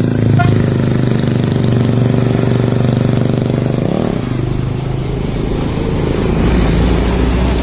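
A large road vehicle's diesel engine, most likely a bus, running close by with a steady drone. Its pitch rises briefly about four seconds in, and a deeper low rumble follows near the end.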